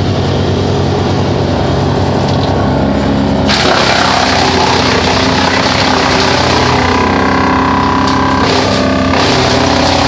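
Vermeer BC1000 wood chipper running steadily, then about three and a half seconds in it starts chipping a log fed into it, a loud, dense rush of noise from the cutting drum over the steady engine.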